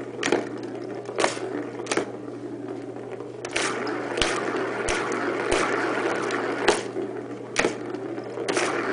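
Plastic ball rolling around the circular plastic track of a Turbo Scratcher cat toy, a continuous rumbling rattle, with a sharp knock about once a second.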